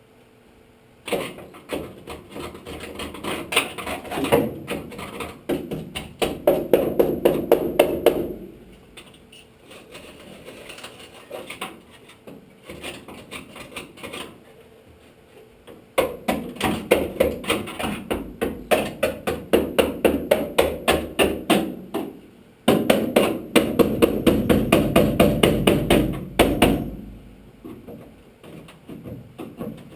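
Rapid, repeated hammer strikes in three long bursts, about three blows a second, with short pauses between the bursts.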